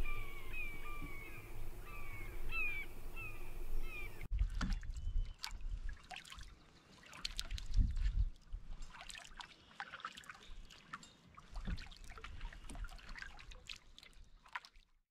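A bird calling over and over in short, harsh, downward-sliding notes, about three a second, for the first four seconds. It cuts off suddenly, and a canoe is then paddled: water trickles and splashes off the paddle, with scattered light clicks and knocks.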